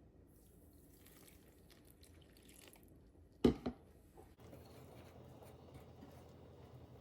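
Faint scattered clicks, then two sharp knocks in quick succession about halfway through, the first much louder.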